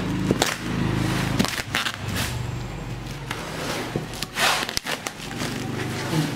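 Black bubble-wrap plastic packaging being handled and torn open, crinkling and ripping in several short bursts.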